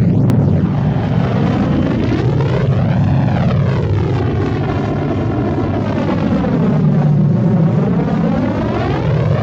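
Star Wars Millennium Falcon interior engine noise sound effect: a steady, loud low hum and rumble of the ship's engines, with a slow swirling sweep in the hiss above it.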